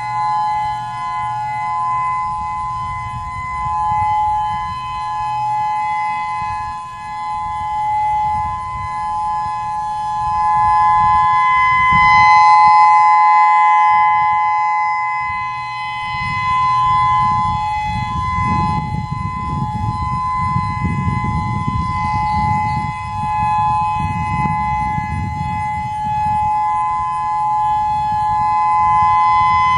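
Federal Signal EOWS-612 electronic outdoor warning siren sounding its Alert signal: a steady two-note tone, swelling and fading in loudness every few seconds. Wind rumbles on the microphone, strongest in the second half.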